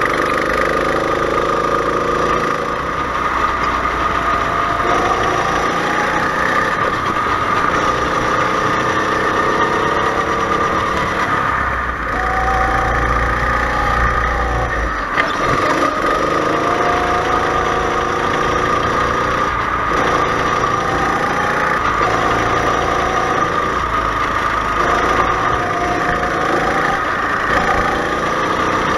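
Go-kart engine heard from on board at racing speed. Its pitch climbs and then drops off sharply again and again as the throttle is opened and closed around the lap, over a steady high tone.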